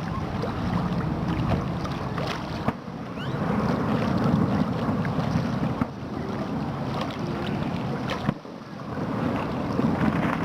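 Aerial fireworks bursting in quick succession: a continuous rumble of booms, with several sharp cracks standing out.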